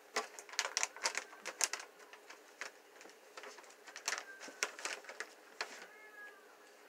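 Dog nibbling and crunching a small soft treat held in a person's fingers: sharp irregular crackly clicks in two clusters, one at the start and another about four seconds in, dying away near the end.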